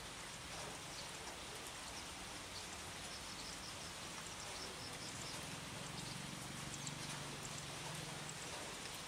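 Steady rain falling on leafy shrubs: an even hiss with scattered drips. From about five seconds in to about eight, a low, drawn-out hum sounds under the rain.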